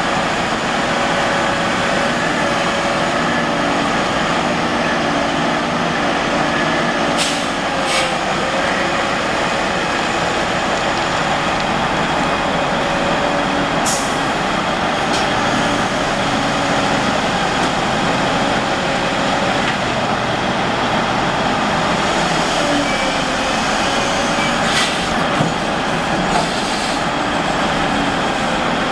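Cat 5130 mining excavator's V8 diesel running hard under load as it digs and swings, with a steady wavering hydraulic whine. A few sharp knocks come through at intervals.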